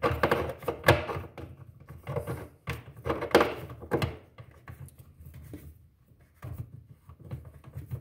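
Screwdriver working a Torx screw into a refrigerator's plastic fan cover: irregular clicks, knocks and scrapes of the tool against the plastic. The loudest knocks come in the first second and again about three to four seconds in.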